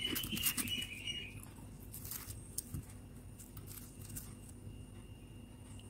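A spoon scooping and stirring powdery freezer frost in a bowl: soft crunching and crackling, densest in the first second and a half, then thinning to a few faint ticks.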